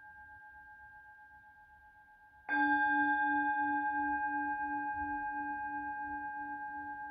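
Tibetan singing bowl struck about two and a half seconds in, while the faint ring of an earlier strike is dying away. It rings on as several steady tones, the lowest one wavering in an even pulse, and fades slowly.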